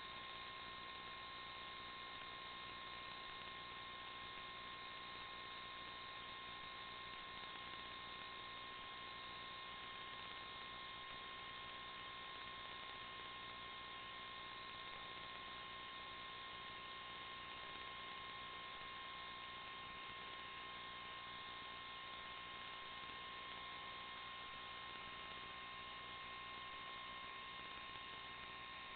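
Steady electronic hum and hiss with a constant high whine, unchanging throughout, with no motor or tyre sound standing out.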